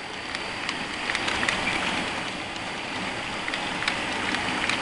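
HO scale model freight train of hopper cars rolling past on the track: a steady rushing hiss of small metal wheels on rail, with scattered light clicks.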